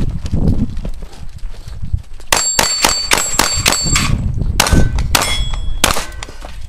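Pistol shots fired in a rapid string starting about two seconds in, each hit answered by the ringing clang of steel plate targets. A few more shots and clangs follow near the end.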